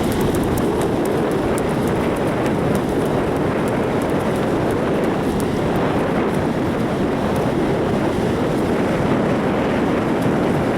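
Steady rush of ocean surf mixed with wind buffeting the microphone, a loud, even noise with no pauses.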